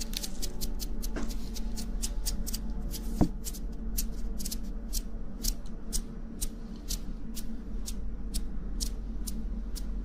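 A steady series of light, crisp clicks close to the microphone, about two to three a second, over a low steady hum.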